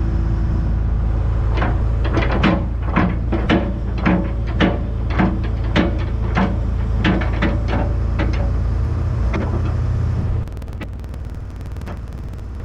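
Komatsu PC220 excavator's diesel engine running with a steady low drone, under a string of sharp knocks and clunks, about two a second, while the machine works the bucket. About ten seconds in, the drone drops to a quieter level.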